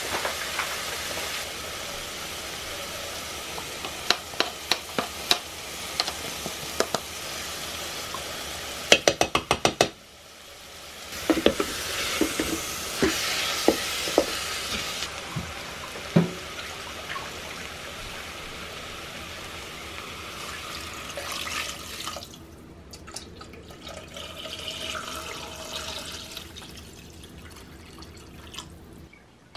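Chopped vegetables and shredded jackfruit sizzling in the stainless steel pot of an electric pressure cooker, with a wooden spoon stirring and knocking against the pot in several quick clicks. Near the end, water is poured into the pot.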